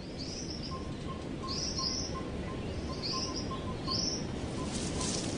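A bird chirping repeatedly in woodland ambience: short high chirps come about once a second over a steady low background hiss.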